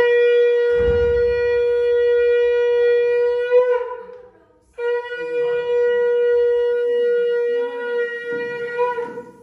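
Conch shell (shankha) blown in two long, steady, single-pitch blasts, the first breaking off near four seconds in and the second starting again just under a second later.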